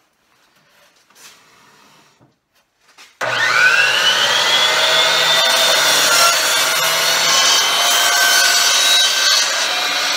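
DeWalt DWS779 12-inch sliding compound miter saw starting up about three seconds in, its motor whine rising quickly to speed. It then runs loud and steady as the blade is pulled down and slid through a roughly 12-inch-wide plywood board, cutting it in one pass.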